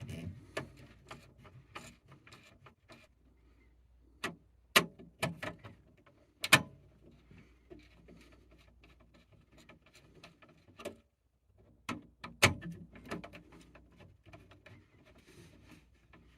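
Scattered sharp clicks and light taps with faint rubbing between them: a screwdriver and small parts being handled at an alarm control panel's zone terminal screws.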